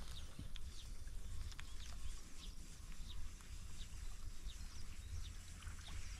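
Outdoor ambience: faint short chirps of small animals, about two a second, over a low steady wind rumble on the microphone, with one sharp click at the very start.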